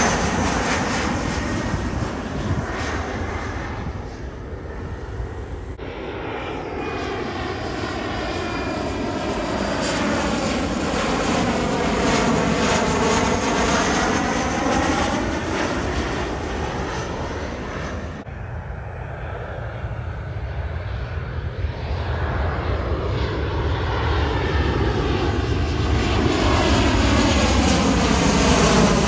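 Twin-engine jet airliners on landing approach passing low overhead, one after another: a continuous jet roar with a sweeping tone that falls and then rises as each plane goes over. The sound changes abruptly twice, about six and eighteen seconds in, where one flyover gives way to the next.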